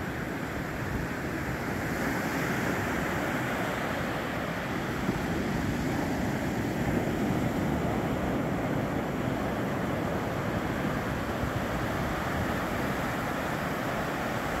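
Ocean surf breaking and washing up on a sandy beach: a steady rushing noise that swells gently a couple of seconds in and again around the middle.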